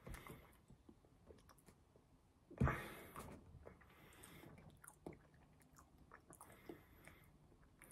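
Quiet mouth sounds of a person chewing food with the lips closed: small scattered wet clicks, and one louder noisy burst about two and a half seconds in.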